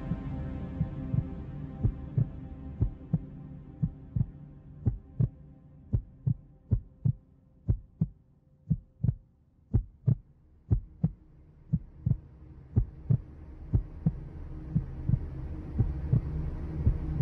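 Heartbeat sound effect: steady double thumps, about one beat a second. A music bed fades out over the first few seconds, and a low rumbling drone swells back in near the end.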